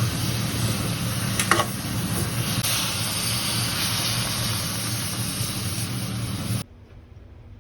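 Food sizzling in hot oil in a pan over a steady low hum, with a brief clatter about a second and a half in; the sound cuts off suddenly near the end.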